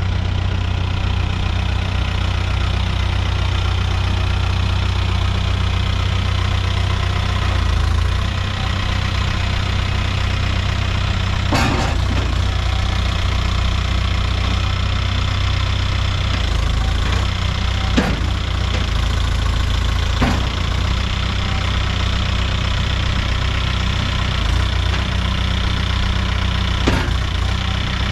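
Case 851EX backhoe loader's diesel engine idling steadily, with four short knocks scattered through.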